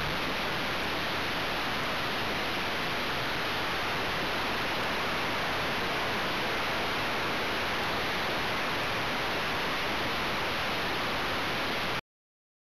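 Steady rushing hiss of airflow over the small onboard camera's microphone on an RC plane, with no motor tone in it. It cuts off abruptly near the end.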